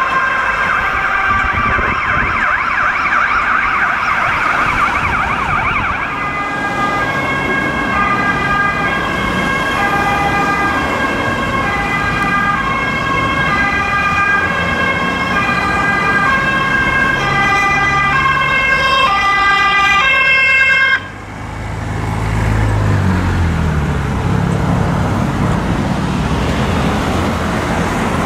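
Emergency vehicle siren. First comes a fast-changing tone, then from about six seconds a slow alternating two-tone hi-lo for about fifteen seconds. It cuts off suddenly about 21 seconds in. After that there is city traffic, with a vehicle engine pulling away.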